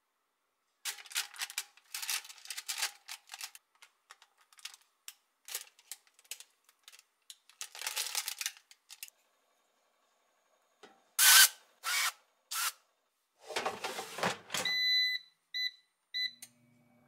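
Metal tongs setting pieces of marinated chicken onto parchment paper in an air fryer basket: rustling and small clicks. Then a few sharp knocks, a scraping rush as the basket slides into the air fryer, and the air fryer's control panel beeping about four times as its buttons are pressed.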